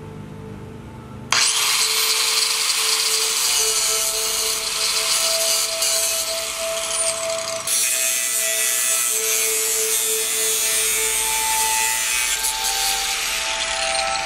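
A handheld power grinder starting up about a second in and then abrading metal with a loud, steady hiss, cleaning up the steel tubing of a go-kart roll bar. The sound changes abruptly about halfway through, as if switching to another stretch of the same grinding.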